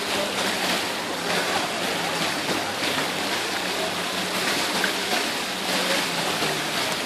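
Steady rushing wash of swimming-pool water, with faint voices of bathers in the background.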